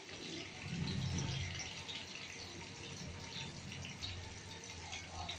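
A whole fish shallow-frying in oil in a kadai, a steady crackling sizzle. A low rumble swells about a second in and then carries on more quietly under it.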